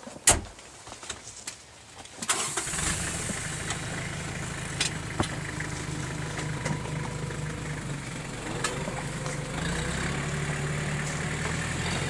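A single sharp knock just after the start. Then, about two seconds in, a small farm tractor's engine starts and runs steadily.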